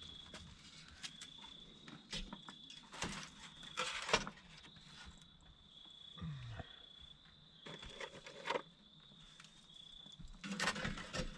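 An insect trilling steadily on one high pitch, breaking off now and then, under scattered knocks and scrapes of handling work, the loudest about four seconds in and again near the end.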